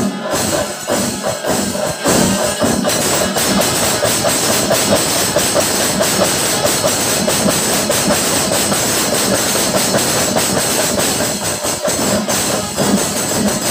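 Panchari melam temple percussion ensemble: chenda drums beaten in a fast, dense rhythm over continuous clashing of ilathalam hand cymbals. Kombu horns sound near the start and again near the end.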